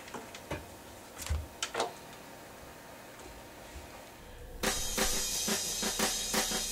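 A few faint clicks and taps over a quiet room, then about two-thirds of the way through a recorded band track with drum kit and cymbals starts abruptly.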